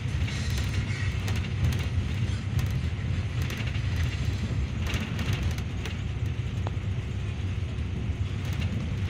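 Inside the cabin of a moving Yutong bus: a steady low rumble of engine and road noise, with small clicks and rattles from the cabin fittings.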